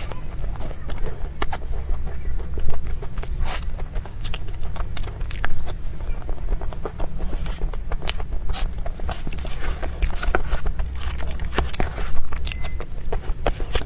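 Close-miked eating sounds of a soft cream dessert: irregular wet clicks and smacks of chewing, with a steady low hum underneath.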